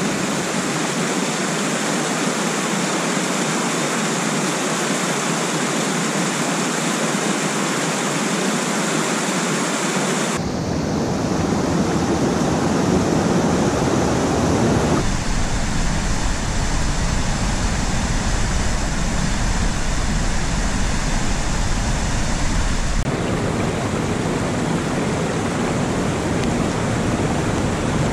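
Mountain stream rushing over rocky cascades: a steady rush of water. Its tone changes abruptly three times, turning deeper about a third of the way in.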